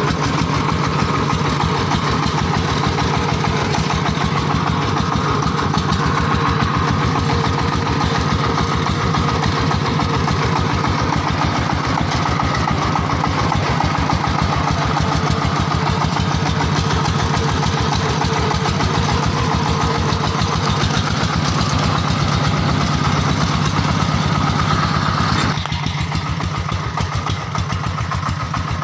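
Single-cylinder diesel engine of a steering-wheel-converted two-wheel 'công nông' tractor, running steadily with a rapid, even chug. About 25 seconds in it drops in level and its higher tones fade.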